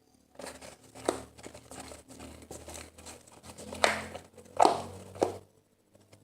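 Homemade slime being kneaded and pulled by hand, giving irregular sticky crackles and squelches, with a few louder ones near the middle and toward the end. The slime is still slightly sticky, not yet fully activated.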